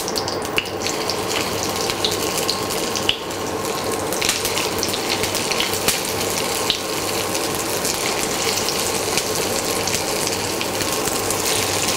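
Potato patties shallow-frying in hot oil in a nonstick pan: a steady sizzle with scattered small crackles and spits.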